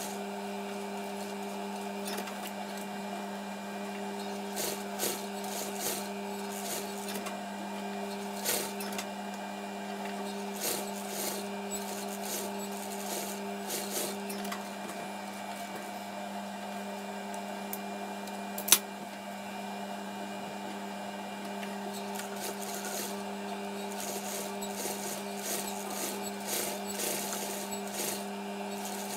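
Industrial sewing machine running as it stitches fabric: a steady motor hum under short, repeated runs of needle clatter, with one sharp click about two-thirds of the way through.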